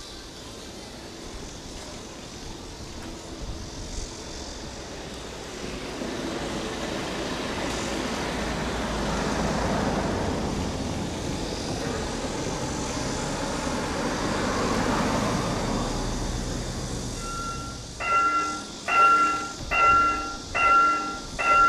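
Level-crossing warning bell starting near the end, a ringing tone repeated about once a second, which signals that the gates are about to come down for an approaching train. Before it, a broad low rumble swells and fades twice.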